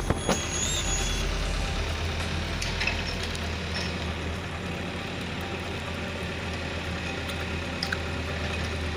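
Heavy construction machinery running steadily, a low engine rumble with a brief high chirp about half a second in.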